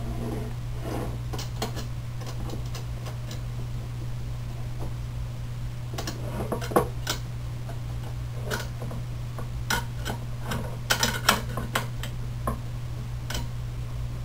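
Scattered clicks and clinks of steel rods, nuts and washers being handled and fitted into plastic frame parts, bunched into a quick flurry about eleven seconds in, over a steady low hum.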